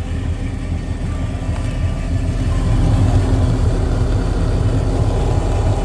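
Boat's 5.7-litre Chevy V8 inboard idling steadily out of gear, with a small electric ballast pump running alongside it. The sound grows a little louder, with a steady hum added, about halfway through.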